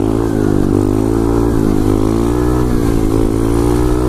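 SSR 125cc pit bike's single-cylinder four-stroke engine running under steady throttle while the bike is held in a wheelie, its pitch rising and dipping slightly as the throttle is worked to keep the front wheel up.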